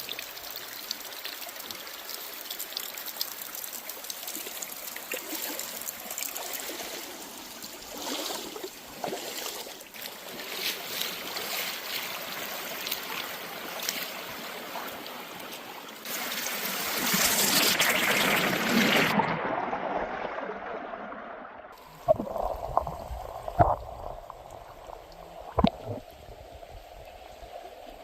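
A shallow stream running and trickling, swelling louder for a few seconds before a cut. After the cut the water sounds quieter, with a few sharp knocks.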